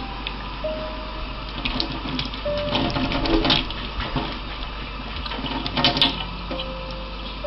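Water running steadily, with louder clattering bursts about three and a half and six seconds in.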